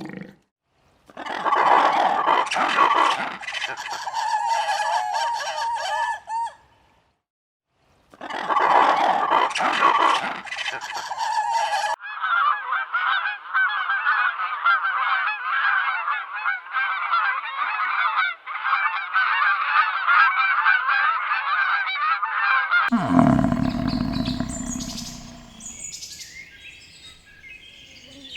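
Geese honking across several short clips, with a dense, continuous honking chorus from a flock for about ten seconds in the middle.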